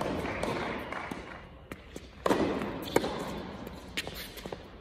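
Tennis rally on an indoor hard court: a string of sharp pops from the ball being struck by racquets and bouncing on the court, each ringing briefly in the hall's echo. The loudest pop comes about two seconds in.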